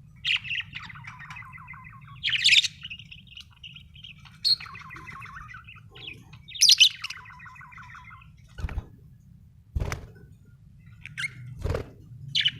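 Pet budgerigars chattering: warbling chirps broken by several sharp, loud high calls. In the second half the chatter thins, and three dull thumps are heard.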